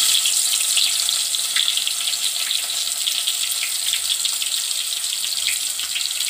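Freshly added sliced onions sizzling in hot oil: a steady, loud hiss with scattered small crackles.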